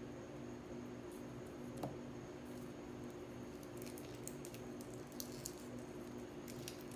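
Resin pendants handled by hand and set down on a paper-lined tray: a soft tap about two seconds in, then a scatter of light clicks and rustles in the second half, over a steady low hum.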